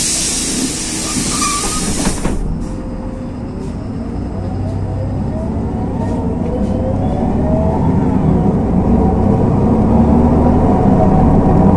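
Inside a LiAZ 6213.22 articulated diesel city bus: a hiss of compressed air for the first two seconds or so, then the bus pulls away, its engine and drivetrain whine rising steadily in pitch and growing louder as it accelerates.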